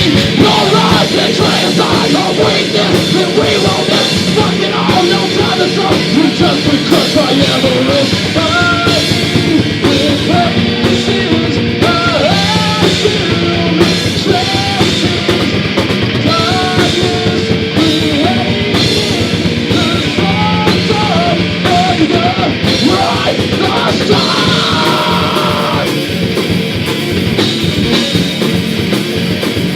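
Loud live heavy rock band playing: distorted electric guitars, bass and drum kit, with sung and shouted vocals over it.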